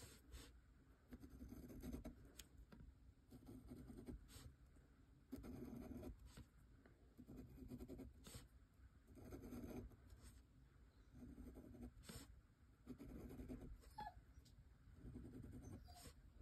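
Kakimori brass dip nib scratching faintly across paper in a series of short strokes as lines are drawn, with a few light clicks between strokes.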